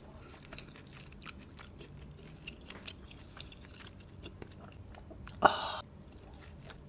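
Close-miked chewing of tender medium-rare roast lamb leg: soft, wet, irregular mouth clicks. About five and a half seconds in comes one louder, short wet mouth sound as the next slice goes to the lips.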